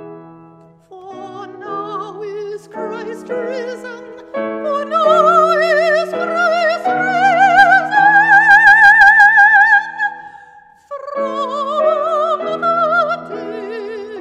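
A soprano singing in classical operatic style with wide vibrato, accompanied by a grand piano. Her line climbs to a long, loud held high note, then stops for about a second before she sings on.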